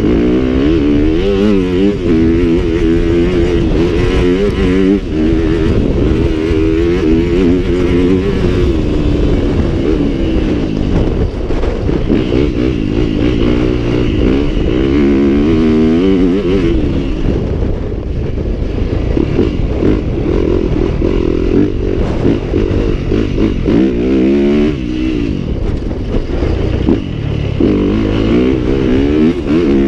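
Yamaha dirt bike engine being ridden hard, revving up and falling back over and over as the rider accelerates, shifts and backs off through the turns.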